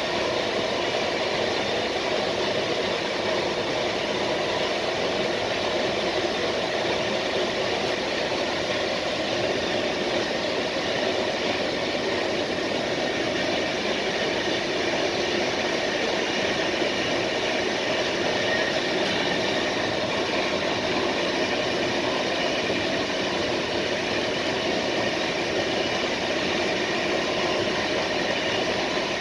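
Steady rolling noise of a passenger train running at speed on its rails, heard from inside the rear end of the last car. It is even throughout, with no rail-joint clicks.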